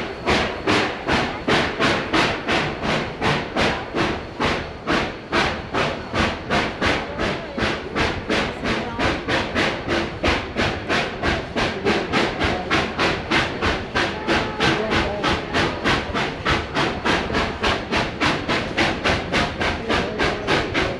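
Steam locomotive working steadily under way, its exhaust chuffing in an even beat of about three chuffs a second.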